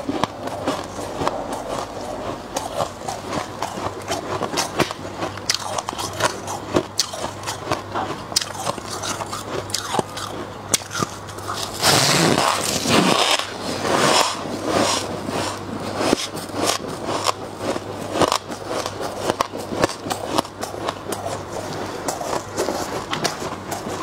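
Close-miked crunching of freezer frost: many sharp crackles and scrapes as packed frost is handled and bitten, with a loud, dense run of bites about halfway through.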